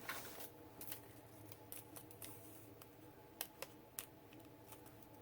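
Faint, scattered clicks and light rustles of paper being handled as a paper snowflake is pressed down with a glue dot, over a low steady hum.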